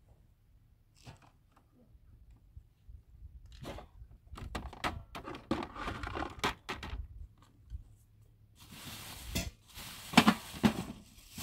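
Irregular sharp knocks and thuds, sparse at first and thickening from about three and a half seconds in, with a stretch of rough rustling noise and louder knocks near the end.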